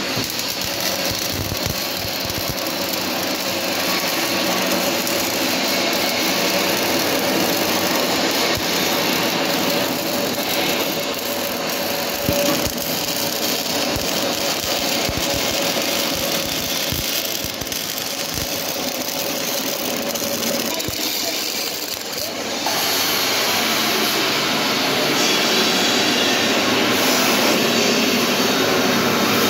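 MIG (gas-shielded wire-feed) welding on a steel frame: the arc gives a steady crackling hiss. About three-quarters of the way through, this gives way to a louder, steadier workshop machine noise.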